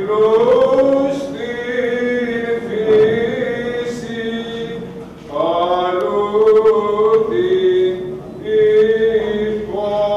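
Byzantine liturgical chant: long held sung phrases with slowly shifting pitch, breaking briefly twice.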